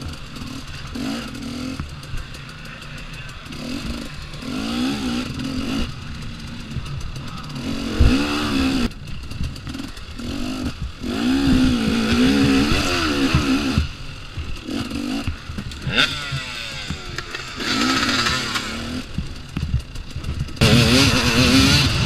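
2014 KTM 250 XC-W two-stroke dirt bike engine revving up and down with the throttle on a rough off-road track, with a couple of sharp knocks from the bike. It runs louder and harder near the end.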